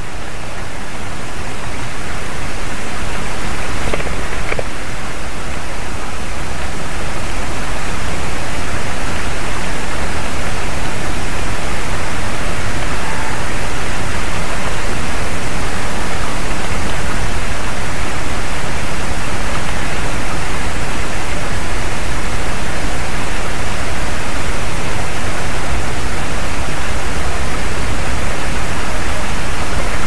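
Loud, steady rushing noise that builds over the first several seconds and then holds, with a faint tick about four seconds in.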